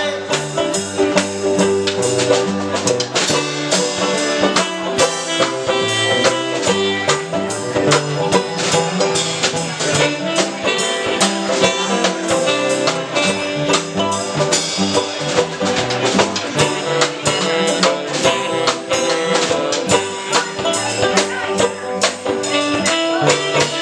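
Live band playing an instrumental break: saxophone over strummed acoustic guitar and a drum kit keeping a steady beat.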